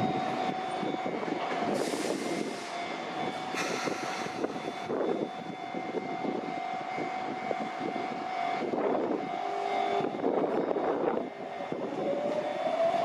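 Sotetsu 8000 series electric train at a station platform, with a steady tone from its equipment and two short hisses in the first few seconds. Near the end it pulls away, and a rising whine from the traction motors comes up as it gathers speed.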